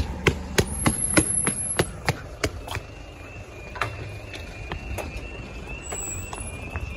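Footsteps on paving, about three a second, then from about three seconds in a level crossing's audible warning alarm sounding as a steady high tone.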